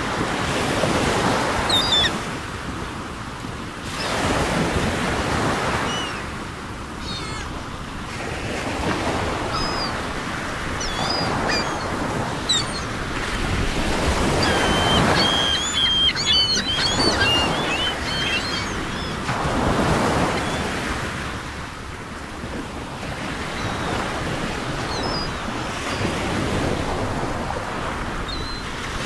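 Ocean surf: waves washing in, swelling and ebbing every few seconds, with faint bird chirps above it, busiest about halfway through.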